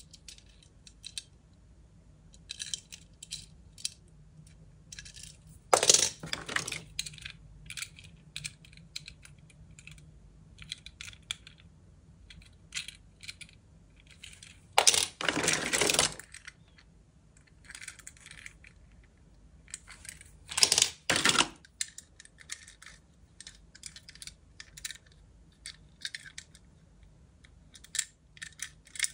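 Die-cast metal toy cars clicking and clinking as they are handled over a box full of them. Three times, the pile of cars clatters more loudly as cars are rummaged through or put back.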